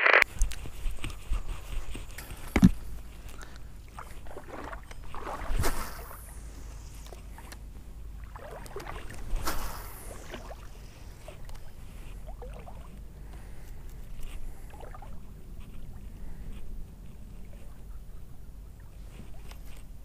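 Handling noise from a chest-mounted action camera: fabric rustling and rubbing over the microphone, with a sharp knock about two and a half seconds in and a few short swishes.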